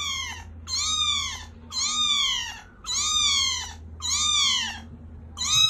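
Young ginger kitten meowing over and over, six high-pitched calls about a second apart, each rising and then falling in pitch.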